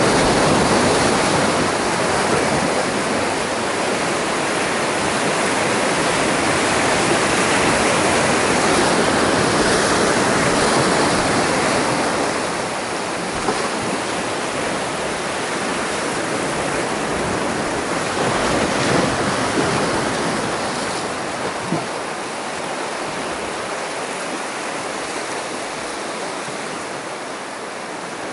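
Sea surf breaking and washing over shoreline rocks, a continuous rushing of water that eases off gradually over the second half.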